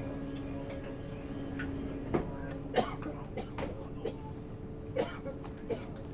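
Steady electrical hum of a stationary 651 series train's onboard equipment heard inside the passenger car, with one of its tones dropping away about two seconds in. Over it, a passenger coughs a few times in short, sharp bursts.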